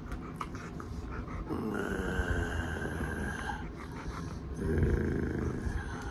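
Husky vocalizing during rough mouthing play: two drawn-out moaning calls, the first about two seconds long and the second shorter near the end, over rustling and panting.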